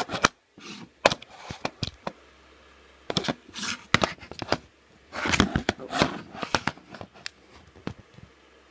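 Handling noise on a phone's microphone: irregular clicks, knocks and rubbing as the phone is moved about and fingers brush over it.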